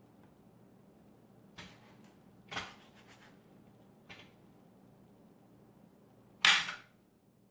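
Kitchen handling sounds: a few short clatters and knocks as cut cantaloupe pieces go into the blender jar, the loudest near the end.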